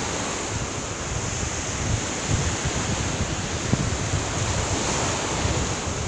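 Small waves washing onto a sandy beach, a steady rush of surf, with wind buffeting the microphone in low rumbles.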